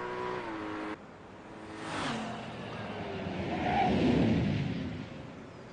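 A vehicle passing by: a rush of noise that swells to a peak about four seconds in and then fades. Before it, a steady pitched tone cuts off about a second in.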